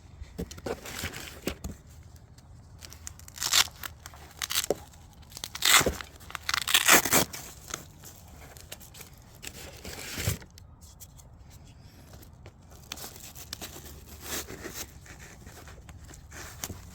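Hook-and-loop fastener being ripped open and nylon plate-carrier fabric handled while a ballistic side plate is fitted into the carrier's flank, in several short rips, the loudest about six to seven seconds in.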